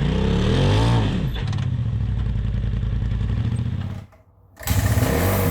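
Dirt bike engine revving up and back down in the first second, then running steadily. The sound cuts out for about half a second about four seconds in, then returns.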